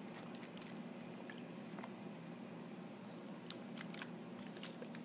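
Scattered light clicks and small taps, as of small objects being handled, over a faint steady low hum.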